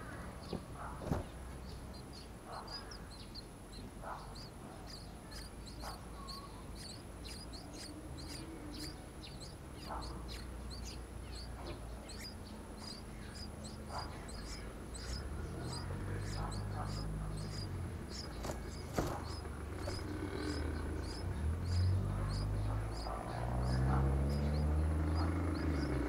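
Short high chirps repeating evenly, a few a second, over a faint steady whine. From about two-thirds of the way in, a louder low hum rises and falls.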